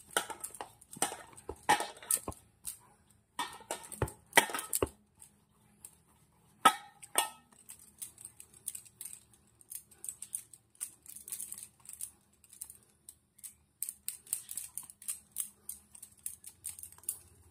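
Irregular clicking and clinking as hands roll dough into a log in a stainless steel bowl: bangles knocking together and against the bowl. Louder knocks in the first few seconds and one sharp knock a little before seven seconds, then lighter, quicker ticking.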